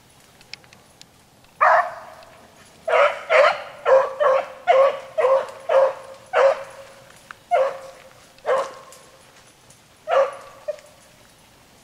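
A dog barking in a run of about a dozen short barks, quick together at first and then further apart. Each bark settles on the same pitch.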